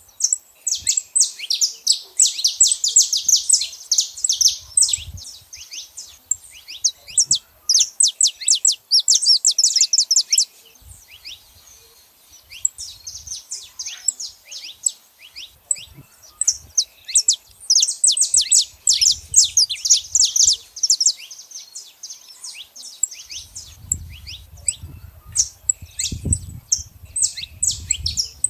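Saffron finch chirping and singing: rapid runs of short, high chirps come in several loud bursts with quieter scattered notes between them. A low rumble sits underneath near the end.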